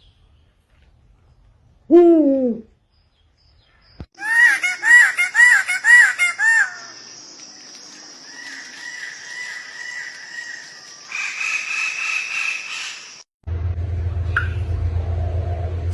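Bird calls: one loud falling call, then a quick run of about six rising-and-falling calls, then a steady high tone with softer repeated calls. A low steady hum starts abruptly near the end.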